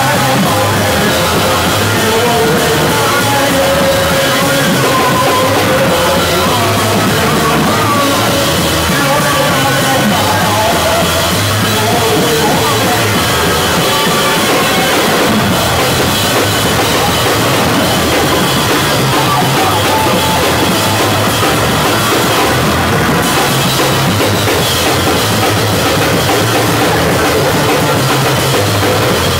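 Noise-rock duo playing live: a drum kit pounded fast and hard under a loud, droning bass guitar, the whole a dense wall of noise without a pause, heard through a camcorder's built-in microphone.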